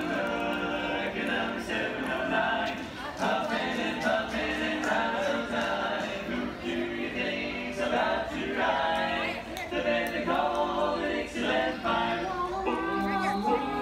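A barbershop quartet of male voices singing a cappella in four-part close harmony.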